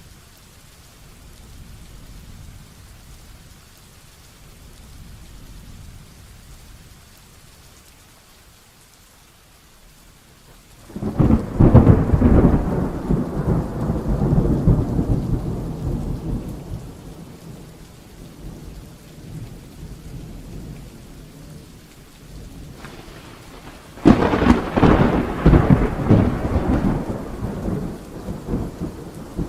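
Steady heavy rain, broken by two loud claps of thunder. The first, about a third of the way in, rumbles on and fades over several seconds; the second comes near the end.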